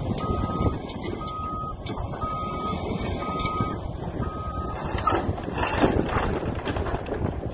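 Heavy equipment's reversing alarm beeping about once a second over the steady rumble of a diesel excavator engine. The beeping stops about five seconds in, and a short burst of cracking and clattering follows.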